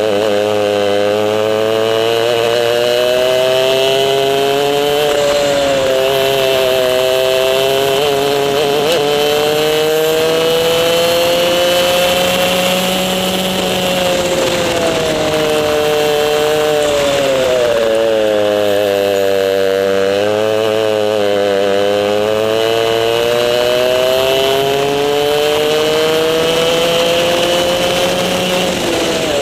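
Racing kart engine heard from on board at full race pace: the pitch climbs steadily along each straight and drops sharply as the driver lifts for corners, several times, with a longer low stretch about two-thirds through before a long climb again.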